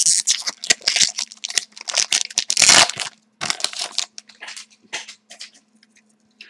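A Score hockey card pack wrapper being torn open and crinkled by hand. Dense crackling fills the first three seconds, then it thins to scattered, softer crinkles.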